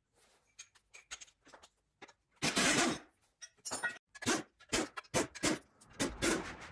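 Pneumatic impact wrench run in a string of short bursts of varying length, undoing the clutch pressure plate bolts on an engine's flywheel.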